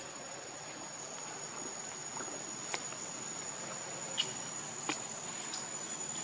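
Insects in the forest droning steadily on one high pitch, with a few sharp clicks about three, four and five seconds in.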